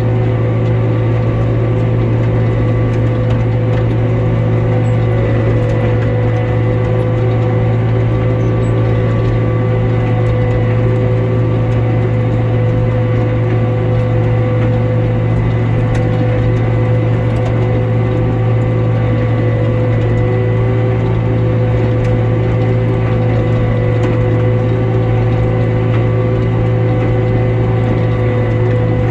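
Tractor running steadily while cutting hay: a constant low engine hum with the steady whine of the mower's gears and driveline over it.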